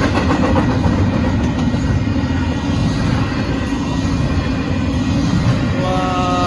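Union Pacific intermodal freight train rolling past close by: a steady, loud rumble of wheels on rails. Near the end comes a short horn note of several tones, which drops in pitch as it cuts off.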